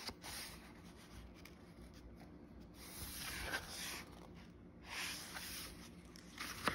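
Paperback book pages being turned and handled: soft paper rustling that swells about three seconds in and again around five seconds, with a short click near the end.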